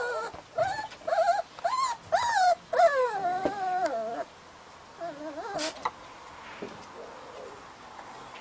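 Siberian husky puppy whining and whimpering in a quick run of short, high-pitched calls that bend up and down, ending in a longer wavering one about four seconds in. One more whimper follows about a second later.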